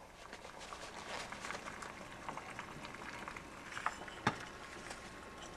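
Water bubbling at a boil inside a stainless steel bottle heated on a homemade alcohol wick stove, a soft crackling hiss. About four seconds in, two light knocks as the bottle is set down on the table.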